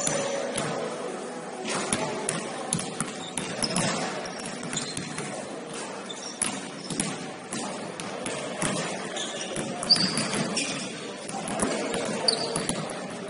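Basketball game sounds in a gym: a ball bouncing and knocking on the court, a few brief high sneaker squeaks, and players' voices in the background. The loudest knock comes about ten seconds in.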